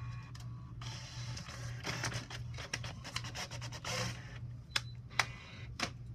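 All-in-one inkjet printer printing a page: a busy stretch of whirring and rattling as the paper feeds and the print head shuttles, followed near the end by a few sharp clicks.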